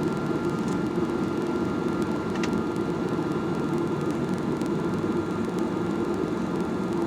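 Steady cabin noise inside a Skymark Boeing 737-800 airliner: an even hum of the engines and air-conditioning, with a faint steady whine above it.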